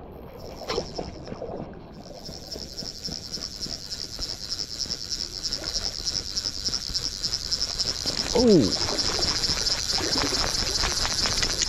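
Fly reel's click-and-pawl drag buzzing fast and steadily as line is pulled off the spool, growing louder over several seconds.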